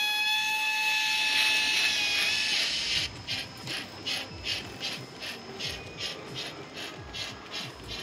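Sound-equipped HO model steam locomotive: a steam whistle blows for about two and a half seconds, then the exhaust chuffs at a steady beat of about three a second as the engine pulls its train.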